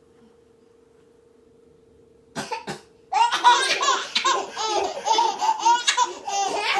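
Two quick coughs about two and a half seconds in, then a baby laughing in a long run of short, repeated peals.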